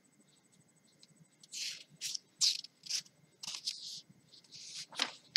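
Book pages rustling and rubbing under the fingers as the open book is handled: a string of short scratchy bursts, with a sharper click about five seconds in.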